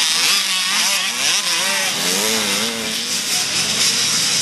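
Dirt bike engines revving, their pitch rising and falling several times over a steady hiss.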